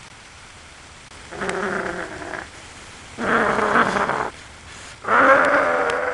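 A man's voice making three drawn-out, wordless monster noises, each a second or more long, the last the longest and loudest.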